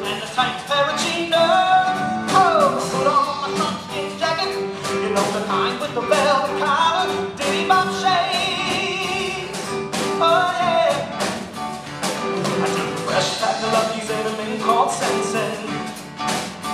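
Live band playing a song: singing over keyboard, electric guitar and a drum kit, with the drums keeping a steady beat.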